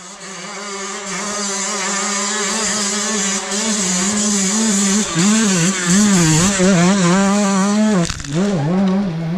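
Dirt bike engine revving hard, its pitch rising and falling quickly with the throttle, with a brief drop about eight seconds in.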